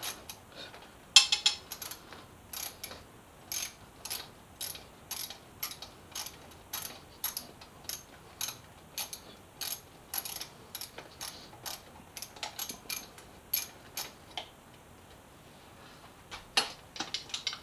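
Socket ratchet wrench clicking about twice a second as a 12mm bolt on the motorcycle's headlight stay bracket is turned loose, after a sharp metal clink about a second in. The clicking stops briefly near the end, then starts again.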